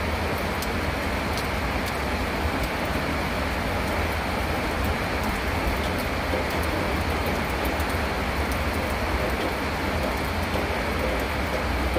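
Steady roar of a heavy rainstorm and floodwater from an overflowing stream rushing down a road in waves, with scattered faint ticks.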